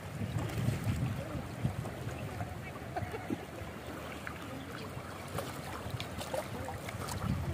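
River water moving and lapping, with faint voices in the background.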